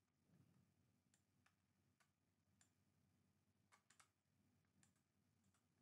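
Near silence, with a few faint computer mouse clicks scattered through it.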